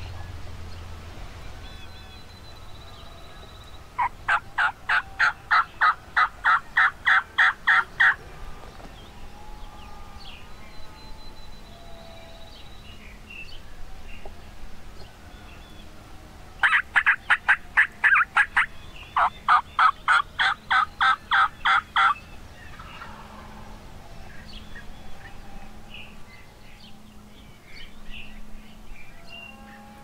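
Turkey call worked by mouth, sending out loud runs of evenly spaced hen yelps, about three notes a second, to draw gobblers in. One run comes about four seconds in and two more run back to back in the middle.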